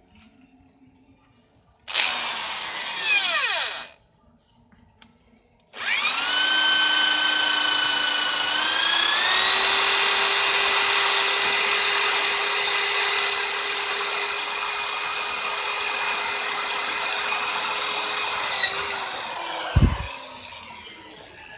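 Handheld electric power tool motor: a short run of about two seconds that winds down, then after a pause a steady high whine for about thirteen seconds, its pitch stepping up slightly a few seconds in, before it is switched off and winds down.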